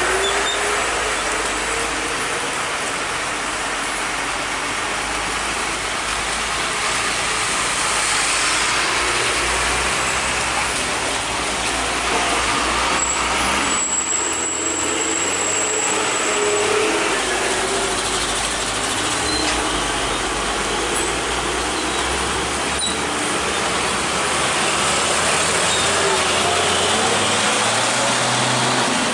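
Heavy trucks and motorcycles passing on a wet road: steady engine and tyre noise. A thin high whistle sounds briefly about halfway through.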